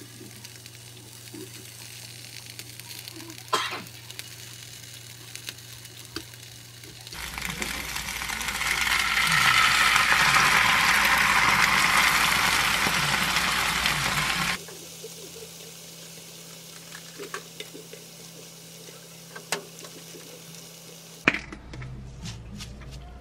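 Frying pan of bean sprouts, onion and pan-fried tofu cooking, with light clicks of chopsticks laying the tofu in. About a third of the way in, a loud sizzle swells as seasoning sauce is poured into the hot pan, holds for about seven seconds and cuts off. Quieter cooking sounds with occasional clicks follow.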